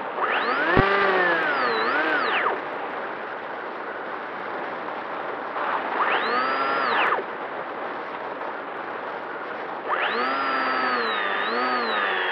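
Electric motor and propeller of a Bixler RC plane, heard from the plane itself, throttled up three times: each time a whine rises, holds, wavers and then drops away. Between the bursts the motor is idle and the air rushing past the plane is heard.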